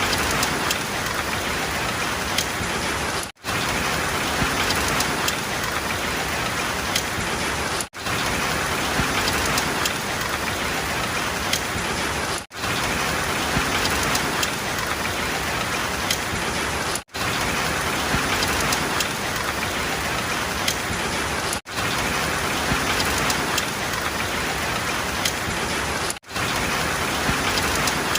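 Steady rain with scattered individual drop hits, cutting out for a split second about every four and a half seconds.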